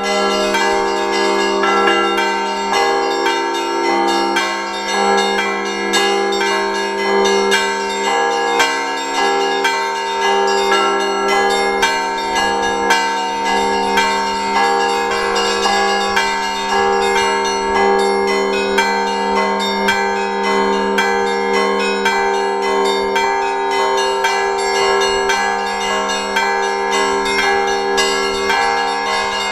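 Russian Orthodox church bells ringing a continuous festive peal: many bells struck in quick succession, the deeper bells ringing on steadily beneath the rapid strokes of the smaller ones.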